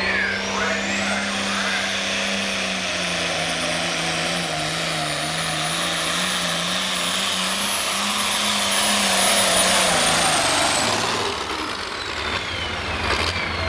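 Turbocharged International Harvester hot stock pulling tractor's diesel engine at full throttle, hauling a weight-transfer sled. A high turbo whistle rises in the first couple of seconds, holds steady through the pull, then falls away near the end as the engine drops off.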